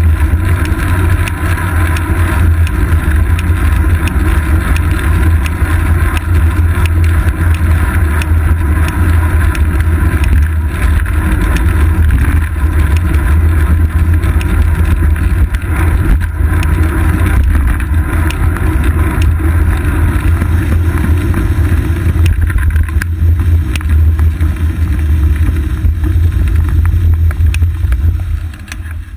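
Wind buffeting and road rumble picked up by a GoPro Hero 2 on the seat post of a moving road bicycle: a steady, loud, low rumble. It drops off near the end as the bike slows at a stop line.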